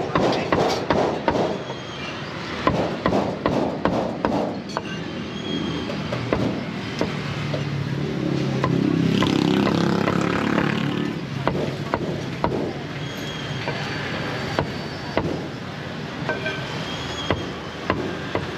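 Cleaver chopping cooked meat on a thick round wooden chopping block: repeated sharp knocks, quick runs of strikes. In the middle a low engine-like drone swells up for a few seconds over the chopping.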